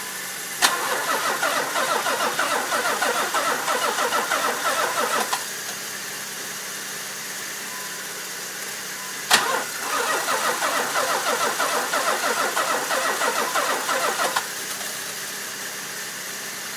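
Nissan 300ZX twin-turbo V6 being cranked over by its starter twice, each time with a sharp click and then an even, rhythmic churning for about five seconds. It does not fire: this is a first start after the build.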